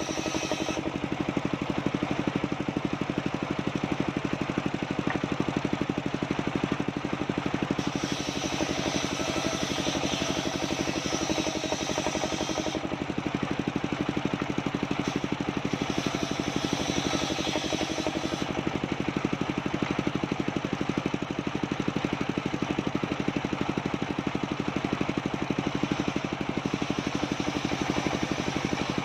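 Engine-driven home-built circular sawmill running steadily, the engine note unbroken, with an upper hiss that drops away about a second in, comes back around 8 s and fades again around 13 s.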